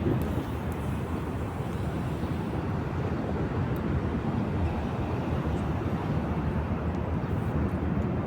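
Steady low rumbling outdoor background noise with no distinct events and no voices.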